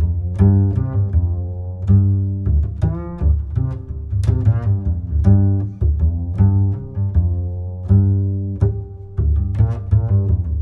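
Background music: sustained pitched notes over a heavy bass, with sharp plucked or struck notes at a regular pulse.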